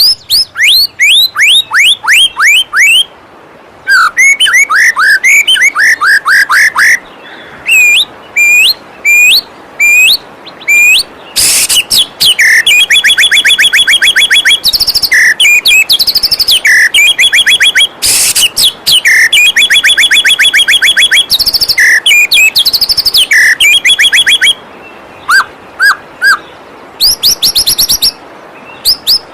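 White-rumped shama (murai batu) singing loudly and continuously in varied phrases: falling whistled notes, rapid repeated notes and fast trills, with short pauses between phrases. A faint, steady rush of flowing waterfall water runs underneath.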